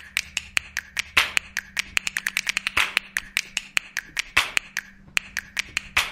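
Rapid sharp clicks and taps, several a second, with a louder snap about every second and a half, over a faint steady low hum.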